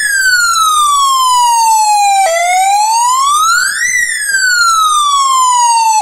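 Electronic siren hooter of a power-resume alarm sounding because mains power has just been restored, very loud. The wailing tone falls, then about two seconds in sweeps up again and falls once more before cutting off suddenly near the end.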